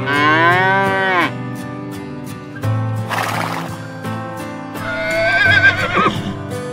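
A horse whinnies about five seconds in, its pitch quavering and then dropping at the end, after a short breathy snort near the middle. A cow moos briefly at the start. Background music with a steady beat plays throughout.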